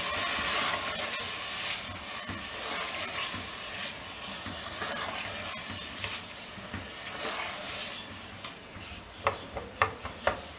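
Washed split moong dal being stirred with a spatula through hot masala in a metal pot, the grains scraping and sizzling, the sizzle easing off as it goes. A few sharp knocks near the end.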